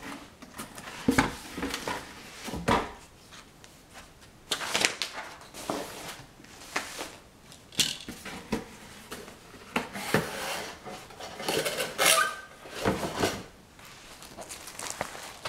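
Objects being handled at close range: irregular taps, knocks and rustles, with a brief clink that rings about twelve seconds in.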